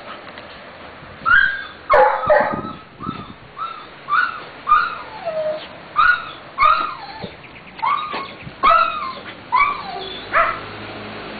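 A dog barking and yipping in play: a run of about a dozen short, high calls, some rising and falling, beginning about a second in.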